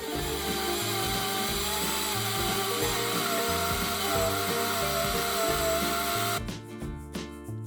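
Electric blender motor running with a wavering whine as it blends the rice flour and coconut milk batter, stopping about six and a half seconds in, over background music with a steady beat.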